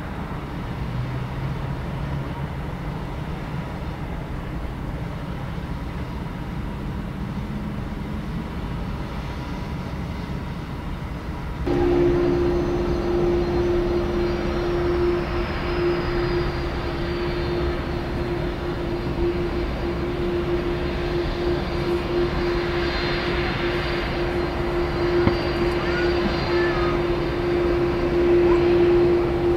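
Airbus A330's Rolls-Royce Trent 700 jet engines running at taxi power, a steady rumble and whine. About twelve seconds in it jumps louder, with a steady low hum and a high whine that slowly falls in pitch.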